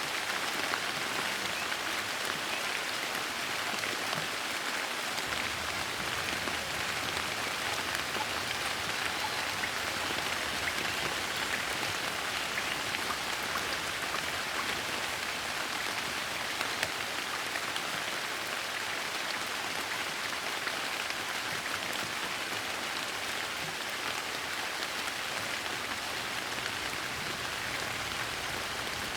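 Steady soft rain falling, an even hiss with many small drops pattering.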